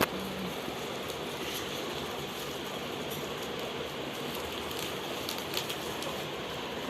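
Steady room hiss with a few faint clicks and taps.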